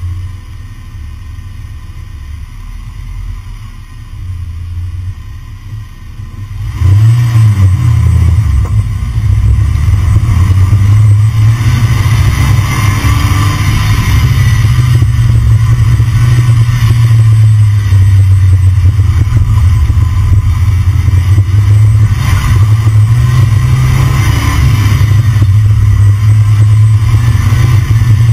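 A car being driven, heard from a camera mounted under its front end: a steady low rumble of the car in motion, which gets much louder suddenly about seven seconds in.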